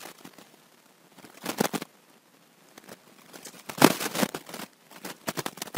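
Computer keyboard typing: three short bursts of key clicks with quiet between them.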